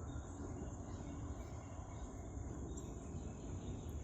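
Steady high trill of crickets, over a low rumble.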